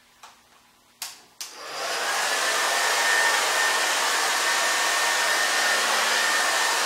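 Handheld hair dryer with a diffuser attachment: two sharp clicks about a second in, then it spins up and blows steadily, with a high whine that rises as it comes up to speed and then holds.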